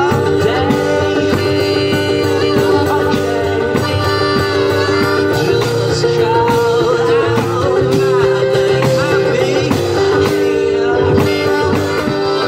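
One-man band playing a loud live song: a strummed guitar and a steady drum beat, with a singing voice over held notes.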